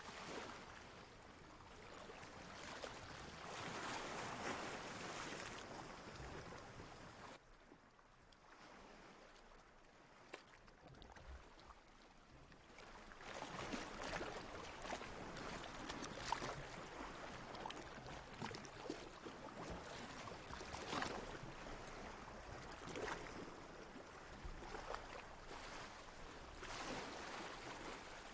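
Ocean water washing and lapping in gentle swells, with a quieter lull about eight seconds in.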